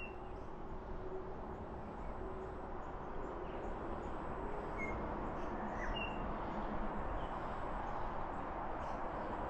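A few short, high bird chirps, spread out over several seconds, above a steady rushing background noise.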